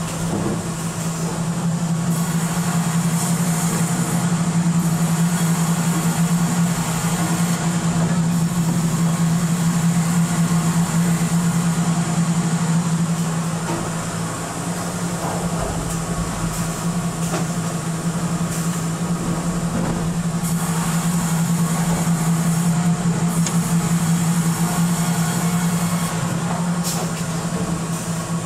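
Sawmill log-handling machinery running: a steady low hum with a few scattered knocks and clanks.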